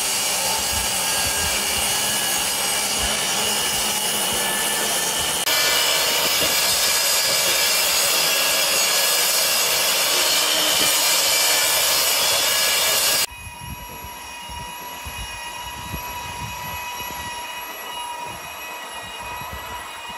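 Benchtop table saw ripping OSB sheet into strips: a loud, steady whine of the blade cutting through the board. About 13 seconds in it drops abruptly to a quieter steady running sound.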